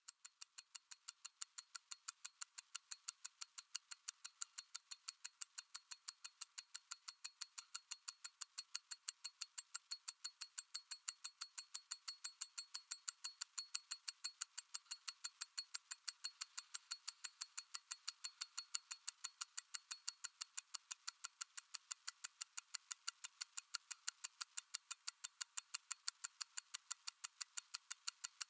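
Mechanical wristwatch with a Miyota automatic movement ticking steadily: crisp, even clicks at about three a second.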